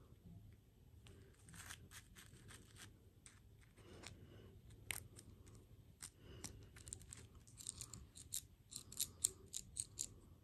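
Small plastic toy parts clicking and snapping as they are fitted and twisted together by hand, with a quick run of louder clicks near the end.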